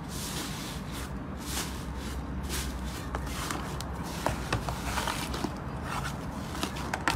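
Hands pressing, kneading and tearing a thick slime in a plastic tub: soft squishing and rustling, with small sharp crackles and pops in the second half.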